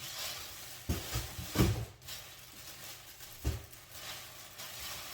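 Packaging and items being handled during an unboxing: a few short knocks and rustles, the loudest about one and a half seconds in.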